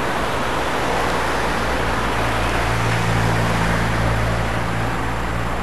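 Road traffic noise with a steady low engine hum that grows stronger about two seconds in.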